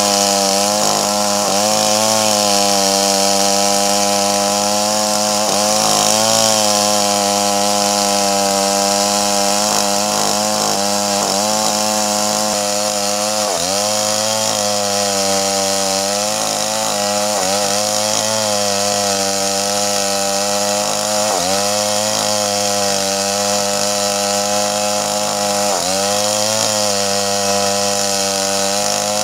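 Stihl 381 two-stroke chainsaw running at high revs, ripping lengthwise down a large red meranti log. The engine note dips briefly in pitch several times as the chain takes load, then recovers.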